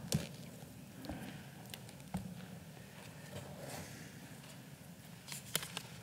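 Faint rustling and small clicks of paper being handled at a lectern microphone, with a sharper rustle about five and a half seconds in.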